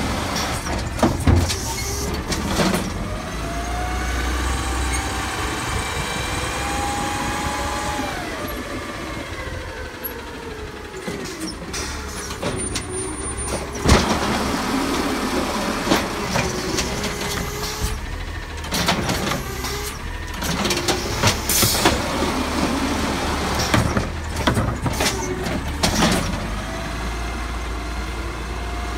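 Automated side-loader garbage truck working its arm: the natural-gas engine runs under a whine of hydraulics that rises and falls in pitch as carts are grabbed, lifted and dumped. A loud bang about halfway through, and several short hisses of the air brakes.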